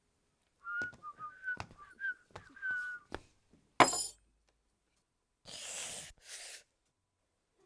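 Hand-made foley sound effects: a run of short whistled notes with a few clicks, then one loud sharp hit, then two short breathy whooshes.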